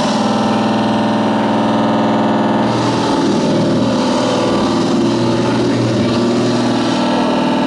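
Harsh noise music: a loud, dense distorted drone of many buzzing, engine-like tones layered over hiss. Its texture shifts abruptly about three seconds in and again near the end.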